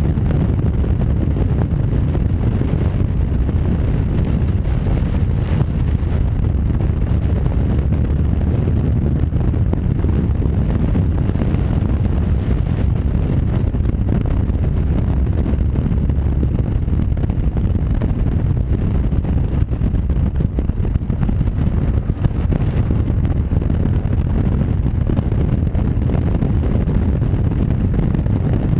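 Honda Varadero V-twin motorcycle cruising at a steady speed: the engine's running mixes with wind rushing over the bike-mounted camera's microphone, a dense, steady low noise without breaks.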